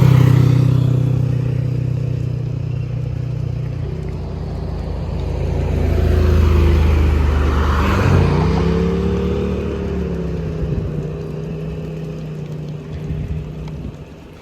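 Motor vehicle engines passing close by: one loudest at the start and fading away, then a second that swells up and accelerates, its engine pitch rising about eight seconds in before settling to a steady run.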